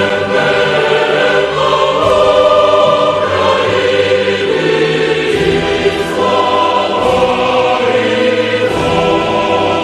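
Choir singing sustained chords with musical accompaniment, the chords changing every second or so.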